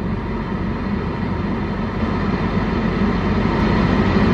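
Car air-conditioning blower fan running at a high setting, a steady, loud rush of air that grows louder toward the end, over the low hum of the idling engine.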